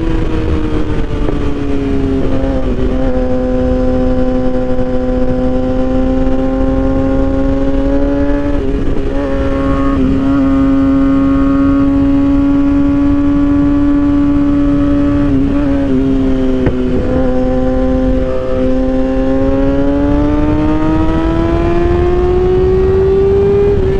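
Kawasaki ZX-6R sportbike's inline-four engine running through an M4 exhaust with the baffle removed, heard while riding. The pitch drops at first, holds fairly steady with a few brief breaks, then rises near the end and falls again, over low wind rumble.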